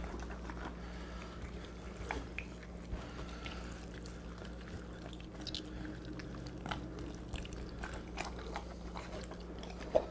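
Faint wet squelching and soft clicking of hands working under the skin of a raw turkey, loosening it from the breast meat, over a low steady hum.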